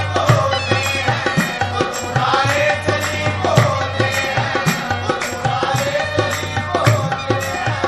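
Sufi devotional music: a wavering melody over a steady hand-drum beat.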